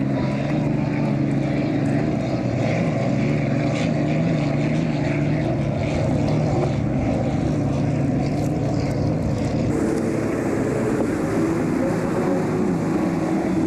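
Unlimited hydroplane race boats running flat out, a steady engine drone carrying across the water; the drone shifts to a higher pitch about ten seconds in.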